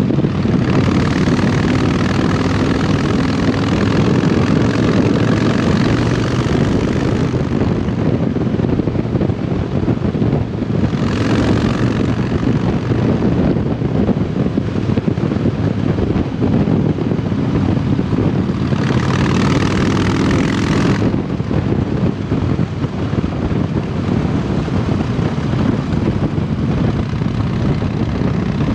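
A 2007 Harley-Davidson Dyna Super Glide Custom's 1584 cc V-twin, through a Vance & Hines aftermarket exhaust, runs steadily at road speed, heard from the rider's seat. Three spells of added hiss come and go: a long one near the start, a short one about eleven seconds in, and another about twenty seconds in.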